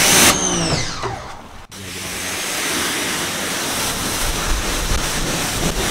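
A man briefly sings a few wavering notes. After an abrupt cut, a steady rush of spraying water hisses on.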